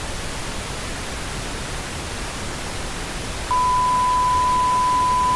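Steady hiss of television static. About halfway through, a single steady test-tone beep joins it and holds.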